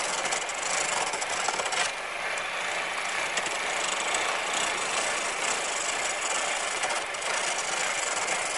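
A gouge roughing down green wood spinning on a foot-powered treadle lathe: a steady, unbroken cutting sound.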